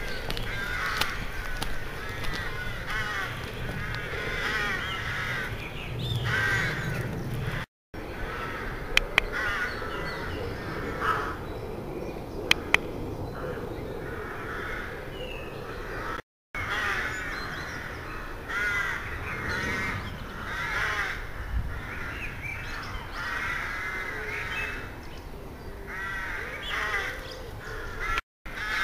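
A flock of crows cawing at dawn, many harsh calls overlapping and repeating without a break. The recording drops out briefly three times, and a few sharp clicks come in between.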